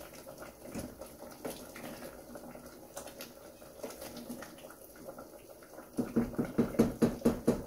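Wooden spoon stirring a thick mung bean and coconut milk stew in a steel saucepan, with soft sloshing and occasional light clicks. About six seconds in, the stirring turns into a quick run of knocks and scrapes against the pot.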